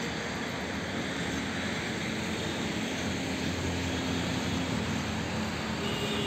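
Strong wind blowing over the microphone: a steady rushing noise with a low rumble.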